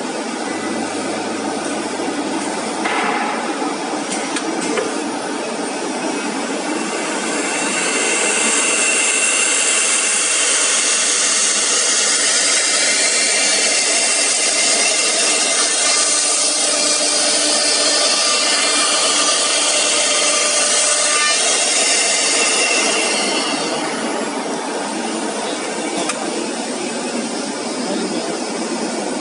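A CNC router spindle routing a groove in MDF board: a steady high whine over a dense cutting noise. It grows louder and brighter about a quarter of the way in, then eases back near the end.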